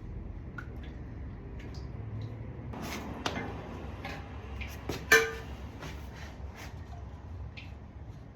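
Scattered clicks and light knocks over a low steady hum, with one louder knock that rings briefly about five seconds in.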